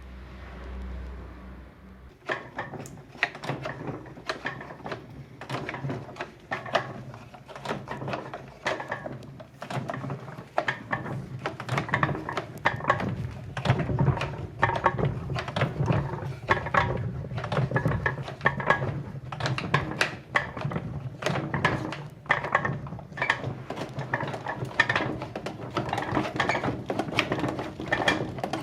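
Antique washing machine's mechanism clattering as it is worked: irregular clicks and knocks over a low steady hum, starting about two seconds in.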